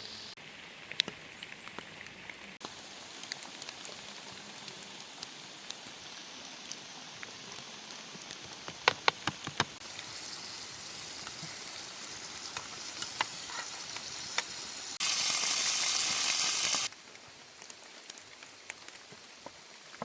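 Rain falling steadily, with scattered sharp drip ticks. Partway through, for about two seconds, a louder bright sizzling of food frying in a pan cuts in and stops abruptly.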